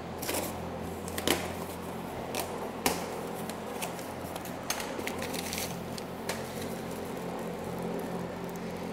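Cardboard box being opened by hand: scattered sharp clicks, scrapes and rustles of the cardboard flaps and packing paper, the two strongest about a second and three seconds in, over a steady low hum.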